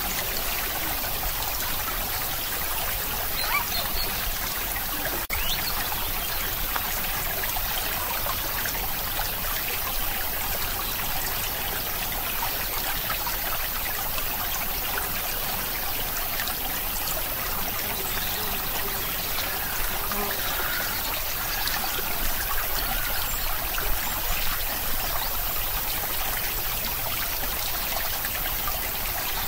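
Steady noise of running, trickling water, like a small stream, with a single faint click about five seconds in.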